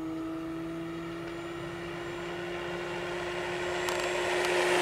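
Electric motor and propeller of a large RC T-28 Trojan model plane, a steady whine growing louder as it comes in on a fast pass, its pitch creeping slightly higher.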